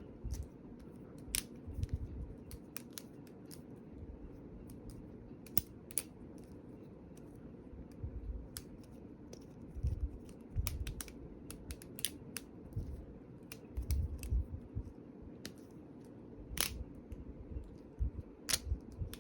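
Replicant balisong trainer being flipped through a combo: the handles and blade click and clack against each other in irregular sharp clicks, some in quick bunches, with soft low thumps of handling.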